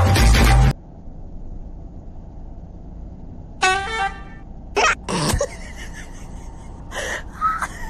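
Loud music cuts off abruptly under a second in. A baby then squeals several times: first one held, even-pitched squeal, then shorter, sliding ones.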